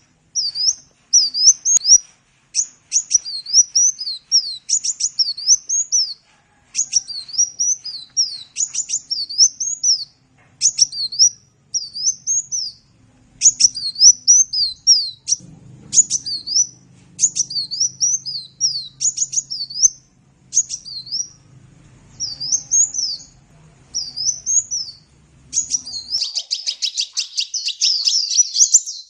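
Sunbird (the bird Indonesian keepers call kolibri) singing a long run of high, quick swooping chirps in short bursts with brief pauses, breaking into a fast, dense twittering near the end.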